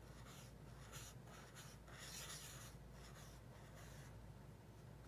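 Faint scratching of a Zebra Mildliner highlighter's felt tip on dotted journal paper, in short irregular strokes as the word "august" is lettered.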